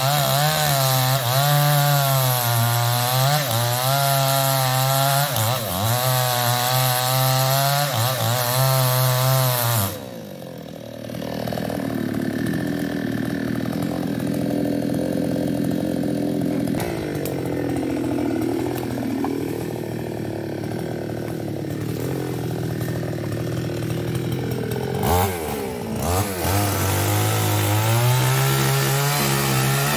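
New West 588 two-stroke chainsaw cutting into a ketapang trunk at full throttle, its pitch wavering under load. About ten seconds in it drops suddenly to a lower, quieter idle for roughly fifteen seconds. Near the end, after a knock, it revs back up and cuts again.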